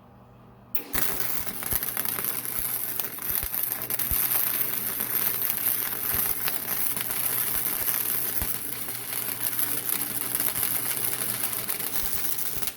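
Flux-core wire-feed welder laying a weld bead: a steady, dense crackle of the arc that starts about a second in and cuts off sharply near the end, over a low hum from the welder.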